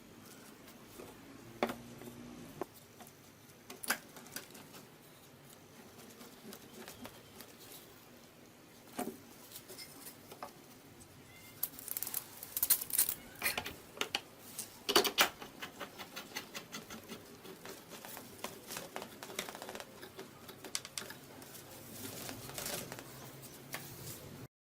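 Scattered light clicks, taps and knocks of small wooden pieces and tools being handled on a workbench. They come thick and fast for a few seconds around the middle, with a few louder knocks among them.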